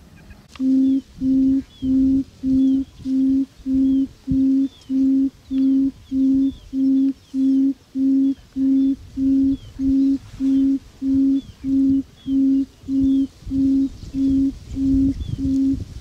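A low bird hoot repeated very evenly, about two a second, some two dozen times. Faint high, falling chirps sound behind it.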